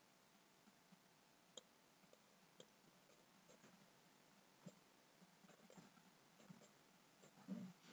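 Near silence: room tone with scattered faint computer-mouse clicks that come more often in the second half, and a soft low thump near the end.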